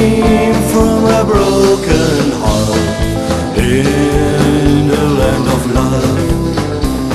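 Rockabilly band music: long held guitar notes over a steady beat of bass and drums.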